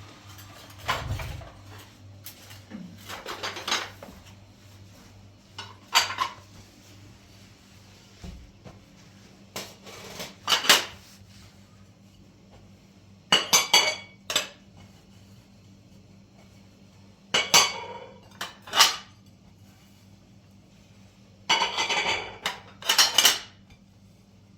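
Dishes and cutlery clattering in short bursts every few seconds, over a faint low steady hum.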